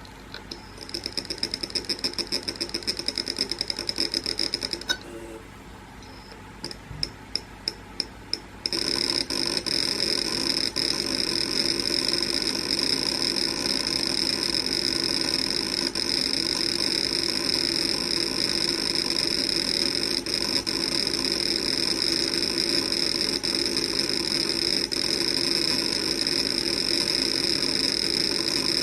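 Failed WD Red 6 TB (WD60EFRX) hard drive trying to initialize at power-up without success. First a fast buzzing run of ticks with a high tone for about four seconds, a short pause broken by a few separate clicks, then about a third of the way in a steady high-pitched whine over a low hum that carries on.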